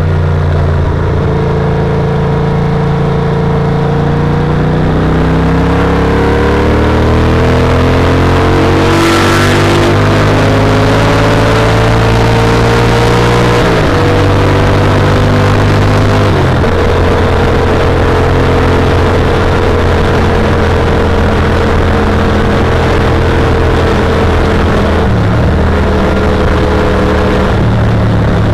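Yamaha TRX850's 849 cc parallel-twin engine under hard acceleration. Its pitch climbs steadily for the first fourteen seconds or so, drops at upshifts about 14 and 16.5 seconds in, then holds a steady cruising note, over a constant rush of wind and road noise.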